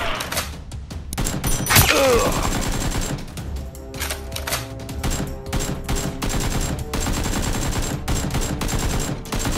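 Rapid gunfire sound effects: volleys of quick shots dubbed over Nerf blaster action, with background music underneath.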